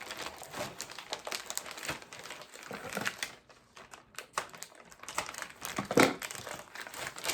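Plastic packaging of thin pizza crusts crinkling and rustling as it is opened and a crust is pulled out, in irregular crackles with a quieter pause midway and a louder rustle about six seconds in.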